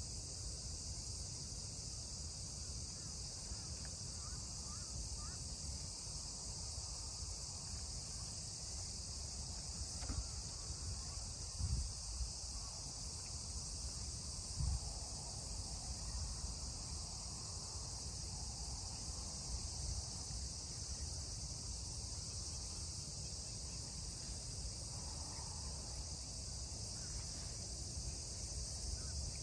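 Insects, crickets, chirring in a steady high chorus over a low rumble, with two dull thumps near the middle.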